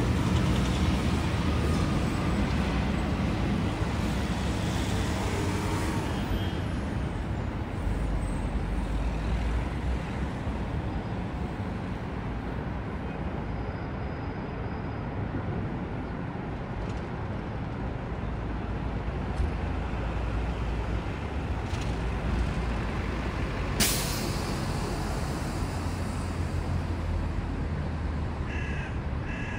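Steady low rumble of road traffic and buses, loudest in the first few seconds, with a single sharp click a few seconds before the end and a crow cawing a few times near the end.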